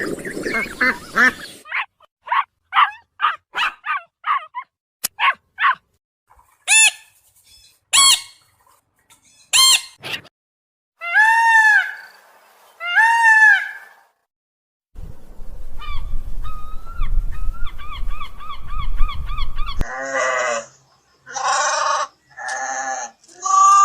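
A run of different animal calls cut one after another. First come rapid pulsed chirps and sharp clicking calls. Then two calls that rise and fall in pitch, a stretch of steady low rumble under quick repeated chirps, and four harsh calls near the end.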